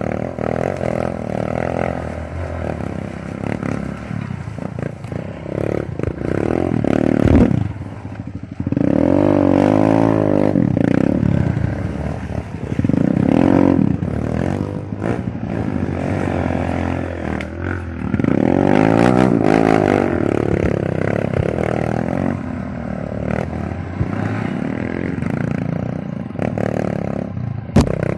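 Small single-cylinder trail motorcycle engine, 150cc class, revving up and down under load, with its pitch surging hard three times. Rattling and scraping run through it, with a sharp knock about seven seconds in and another near the end.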